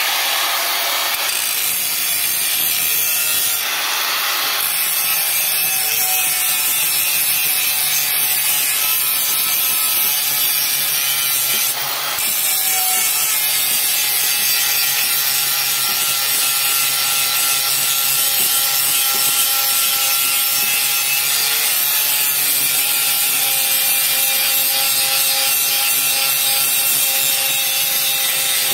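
Handheld electric angle grinder running and grinding the steel cutter blades of a soybean thresher to sharpen them: a steady motor whine with harsh metal-on-metal grinding, and a short break about 12 seconds in.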